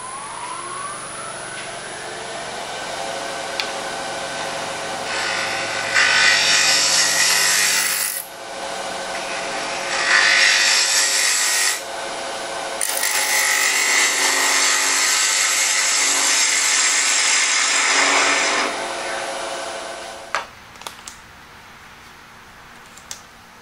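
Lathe motor spinning up with a rising whine, then running steadily while a hand-held turning tool cuts the spinning blank in three scraping passes, the longest one lasting about five seconds. The lathe cuts out about twenty seconds in, leaving a few faint clicks.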